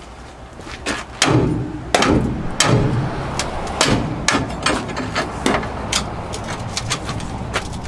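Hammer blows on steel at the engine mount perch on the truck's frame: a run of sharp, ringing strikes, irregular, about two a second, starting about a second in. The old engine perch is being knocked off the frame.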